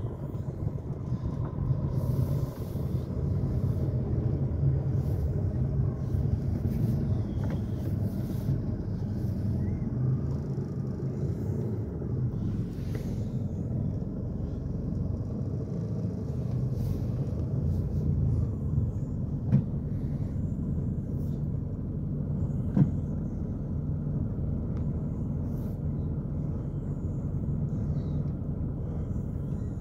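A Toyota Corona EXiV sedan's engine and tyres running steadily, heard from inside the cabin as the car rolls slowly along. Two short sharp knocks come about three seconds apart, some two-thirds of the way in.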